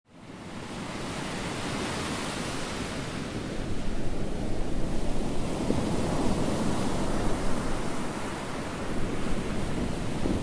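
Steady rushing noise, like wind or surf ambience, fading in over the first second and growing rougher and deeper from about four seconds in.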